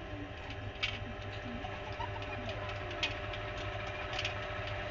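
Electric motor of a homemade bench grinder with a grinding wheel, running with a steady hum under dimmer speed control and growing slightly louder as the knob is turned. A few faint ticks.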